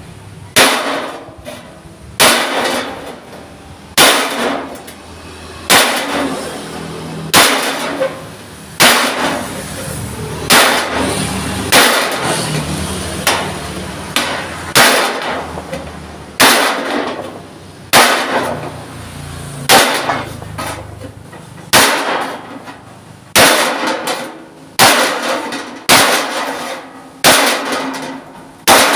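A hammer beating a thick steel plate, about 2 mm, to shape it: sharp ringing clangs at a steady pace of roughly one blow every second and a half.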